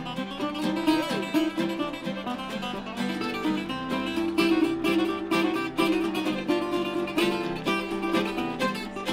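Instrumental western swing: a National resonator guitar playing over a steadily strummed acoustic rhythm guitar, with no singing.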